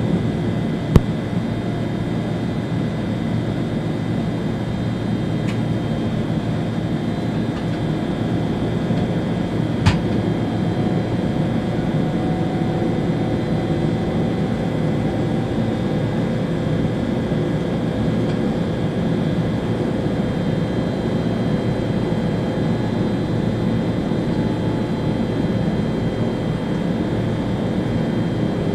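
ÖBB Railjet train heard from the driver's cab while running along the line: a steady rumble and rush with faint high whining tones. A sharp click about a second in, and another about ten seconds in.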